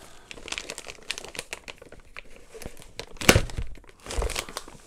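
Thin plastic bag crinkling and rustling as it is worked open with a knife that has gone dull, with a louder knock a little over three seconds in.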